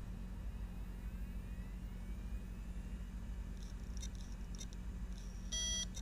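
Failed Seagate ST2000DM001 hard drive: a steady hum with a faint rising whine, then a few sharp clicks about three and a half to five seconds in and a short beep near the end, the click-and-beep 'click of death' of a drive that has died.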